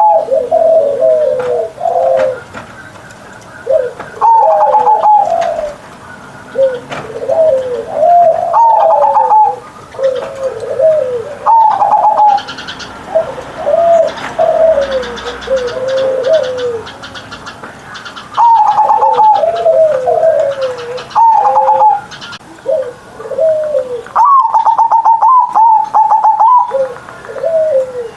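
Zebra dove (perkutut) cooing in full voice, one phrase of quick stuttering coos after another every second or two.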